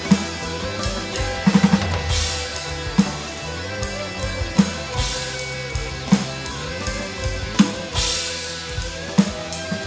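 Roland TD-17KVX electronic drum kit played along to a rock backing track. It plays a slow beat with a hard snare hit about every second and a half and crash cymbal washes. A quick run of snare strokes comes about a second and a half in, over the song's held chords.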